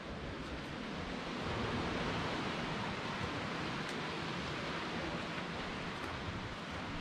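Sea water surging and echoing in a rocky cleft: a steady rushing wash that swells about a second in and holds.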